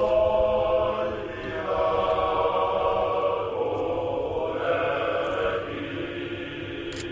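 A large group of voices singing a slow, solemn song in long held notes, the chord changing every second or so.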